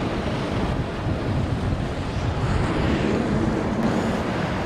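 Wind buffeting the microphone, a steady low rumbling rush.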